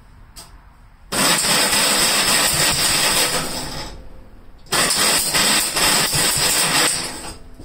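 Gravely tractor engine being started from cold on choke, in two attempts of about three seconds each; each starts suddenly and dies away over about a second.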